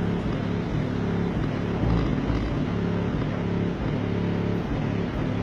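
A car-audio wall of eight Soundstream subwoofers (four 10-inch, four 12-inch) on two amplifiers, playing bass-heavy music with steady, repeating low notes. The volume is set five steps below clipping, and the sound comes through the car's closed door.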